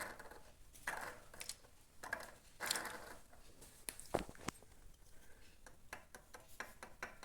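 Camshaft of a Honda Fan 160 turned and rocked by hand in the open cylinder head, its worn bearing giving irregular clicks and rattles. The bearing has excessive up-and-down play.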